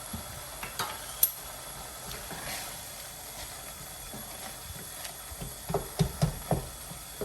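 Spoon stirring a pan of cooking chicken mince and tomatoes over a steady low hiss, with a sharp clink about a second in and a quick run of knocks near the end.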